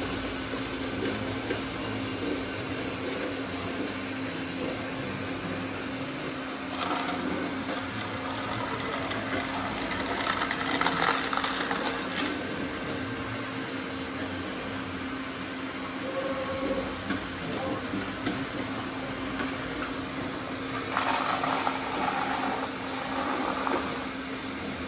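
Small electric motors of radio-controlled construction trucks whirring with a steady hum. Louder bursts of noise come about a third of the way in, around the middle, and again near the end.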